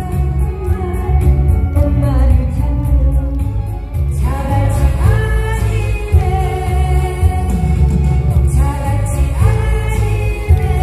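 A woman singing a Korean trot song into a microphone over an amplified backing track with a steady bass beat.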